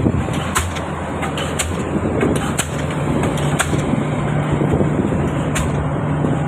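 Diesel pile hammer striking a spun concrete pile about once a second, each blow a sharp crack. Underneath runs the steady hum of the piling rig's engine.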